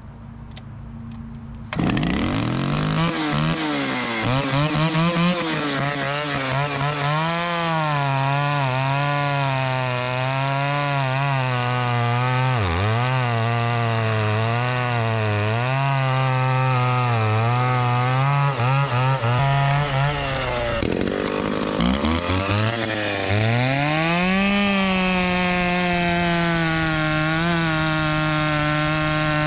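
Stihl 041 two-stroke chainsaw running at high revs and cutting wood, its pitch wavering and dipping as the chain loads in the cut. It starts suddenly about two seconds in, drops briefly about 21 seconds in, then climbs back to a steady high pitch.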